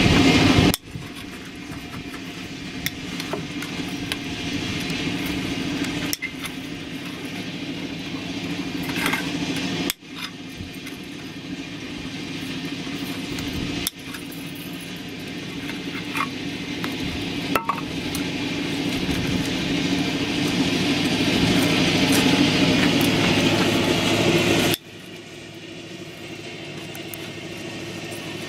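Steel pincers twisting and snipping binding wire on wooden formwork, with a few light metallic clicks, over a steady motor-like hum that cuts off abruptly several times.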